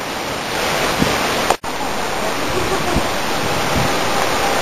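Heavy thunderstorm rain pouring down in strong wind, a steady loud rush. The sound cuts out for an instant about a second and a half in.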